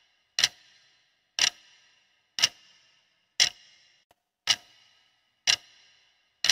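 Countdown-timer clock-tick sound effect: one sharp tick each second, about seven in all, each with a short fading ring.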